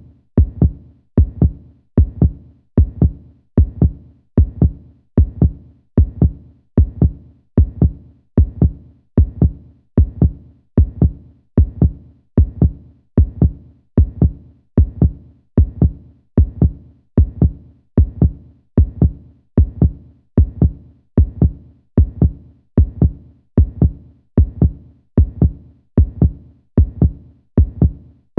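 Human heartbeat sound effect: a steady, even rhythm of low double thumps (lub-dub) repeating a little under once a second.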